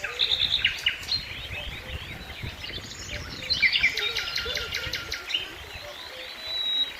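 Songbirds singing: quick chirps and trills, a fast run of repeated notes about halfway through, and a long thin whistle near the end. Beneath them is a low rumble that fades out after about five seconds.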